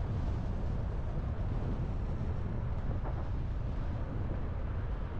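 Car driving slowly on a paved road, heard from inside the cabin: a steady low rumble of engine and tyre noise.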